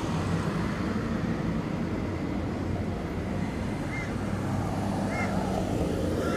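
Steady low outdoor rumble with a noisy, wind-like haze and no distinct events; three faint short high chirps come in the second half.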